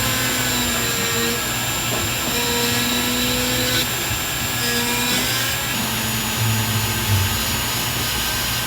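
Steady whirring hiss of a running motor, with a faint hum that comes and goes several times.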